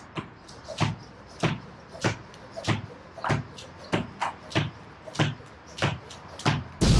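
Beaded jump rope doing double unders on a tiled floor: a steady rhythm of sharp plastic-bead clicks against the tiles with a soft landing thud, about one jump every two-thirds of a second. Just before the end a sudden loud burst of noise cuts in.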